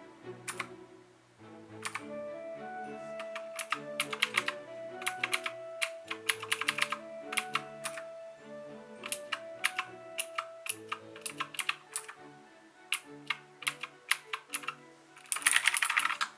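Typing on a Keychron K4 mechanical keyboard with clicky Gateron Blue switches: irregular key clicks, then a fast flurry of keystrokes near the end. Background music plays underneath.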